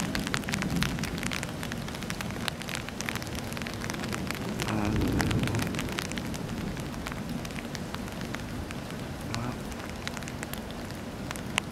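Steady rain during a thunderstorm, with many sharp drop ticks close by. A low rumble swells and fades about five seconds in.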